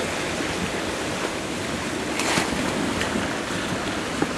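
Spring ice drift on a river: water rushing with broken ice floes jostling and grinding against each other in the current. A brief louder rush comes about two seconds in.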